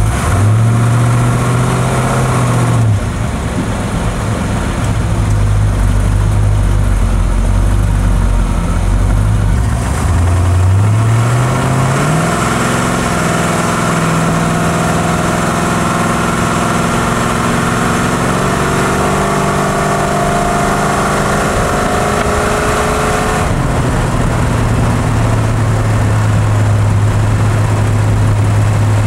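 Car engine idling, blipped briefly near the start, then revved up about ten seconds in and held at a higher speed for about ten seconds before dropping back to idle. The owner suspects the newly fitted Carter mechanical fuel pump feeding it is bad.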